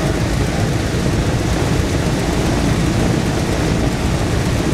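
The four Wright R-1820 Cyclone nine-cylinder radial engines of a B-17 Flying Fortress running together on the ground after startup, a steady, even rumble.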